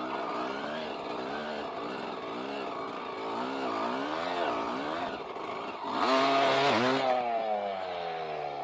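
Dirt bike engine revving up and down as the bike rides through sand. About six seconds in there is a louder rush with the revs high, and then the engine note falls away steadily as the bike goes down in the sand.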